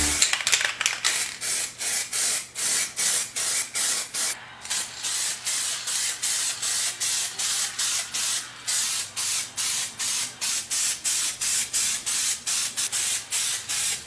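Sprayer hissing in short, rapid spurts, about three a second, with each spurt cutting off sharply.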